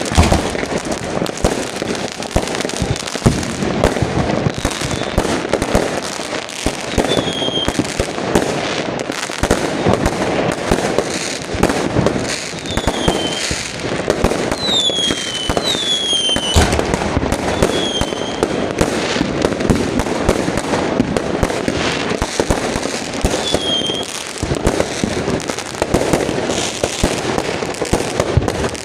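Many fireworks going off together: a dense, continuous crackle of bangs and pops, with short falling whistles now and then.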